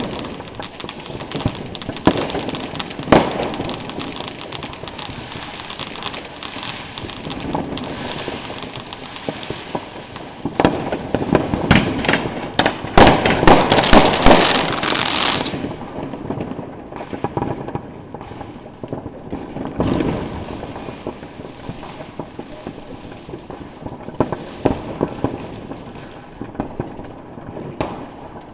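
Consumer fireworks going off: a fountain hissing and crackling throughout while a 20-shot Roman candle fires its shots one after another. A dense, loud run of crackling about halfway through stops suddenly, leaving a quieter hiss with scattered pops.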